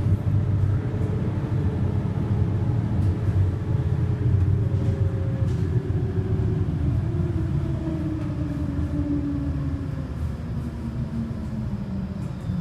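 City bus running, heard from inside the passenger cabin: a steady low rumble with a drivetrain whine that falls in pitch over the last several seconds as the bus slows.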